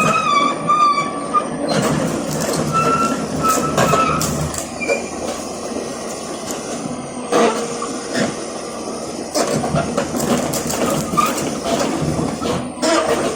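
Komatsu PC200-6 hydraulic excavator running and working, with squeals of metal on metal in the first two seconds and again briefly later, and repeated clanks and knocks over the machine's steady noise.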